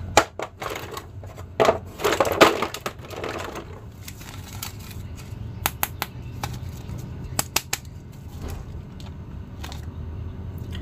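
Plastic crinkling and clicking as a toy figure is pulled from a clear plastic blister tray and handled, with the busiest crinkling around two seconds in and scattered clicks after that.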